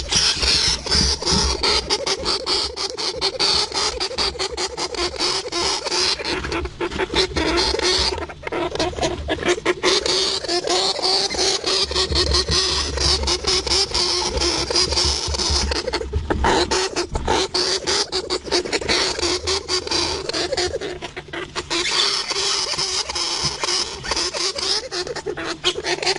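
Hamster sounds: a dense, continuous run of rapid clicks and chattering, with a few brief lulls.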